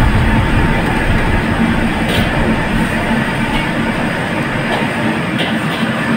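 Gas wok burner running steadily under a wok of hot oil deep-frying a foil-wrapped pompano, with a few short crackles from the frying.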